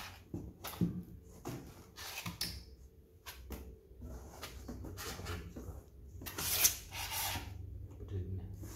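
Avocados being placed by hand into a cardboard box: irregular knocks and scrapes of fruit and hands against the cardboard, with one longer, louder rubbing scrape about two-thirds of the way through.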